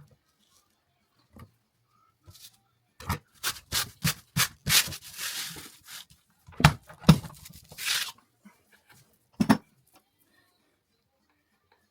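Old expanding foam being scraped and cut out of a window opening by hand: a run of irregular sharp knocks with two stretches of scraping, and a last knock near the end.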